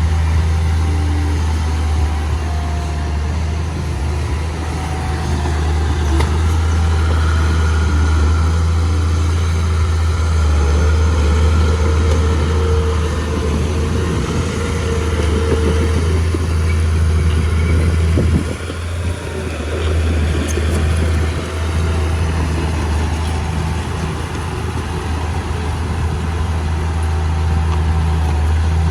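Mitsubishi bulldozer's diesel engine running with a steady low drone, dipping briefly about 18 seconds in.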